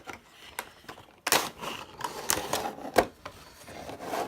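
A Funko Pop cardboard window box being opened by hand: light clicks, then from about a second in, cardboard flaps and the plastic insert scraping and rustling, with a sharp click about three seconds in.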